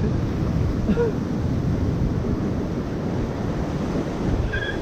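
Ocean surf washing against the rocks, with wind buffeting the microphone.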